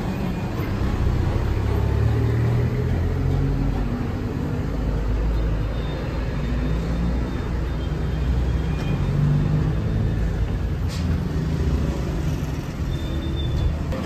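Street traffic: a steady low rumble of vehicle engines, with a few faint high squeaks.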